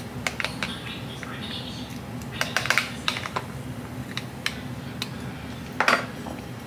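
A small metal spoon clicking and tapping against a plastic popsicle mold while stirring the liquid inside, with a quick run of clicks about two and a half seconds in. Near the end a louder clack as the spoon is set down on the cutting board.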